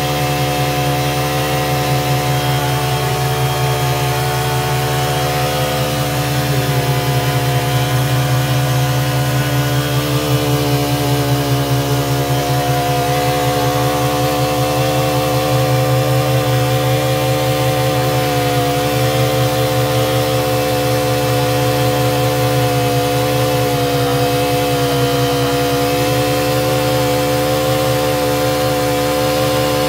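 Engine of a borehole drilling rig running steadily at an even speed, its pitch wavering only slightly.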